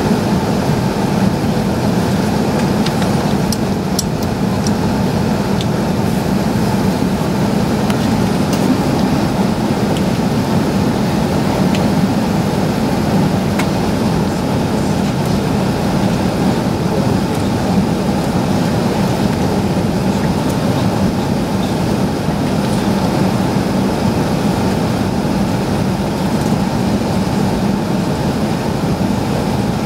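Steady cabin noise inside an Airbus A380 taxiing, its wing-mounted engines running at low taxi thrust, a constant low hum with a few faint ticks.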